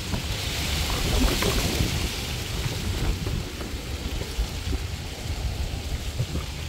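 Wind buffeting the microphone outdoors: a fluttering low rumble throughout, with a rustling hiss that swells during the first couple of seconds.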